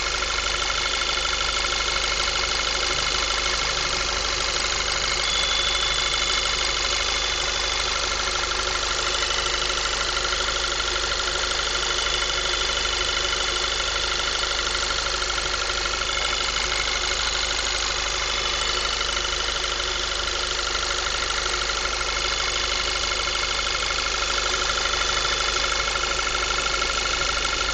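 2010 Volkswagen MKV 2.0 TSI engine idling warmed up, with a steady high-pitched whine over the engine sound, which the owner puts down to a failing water pump.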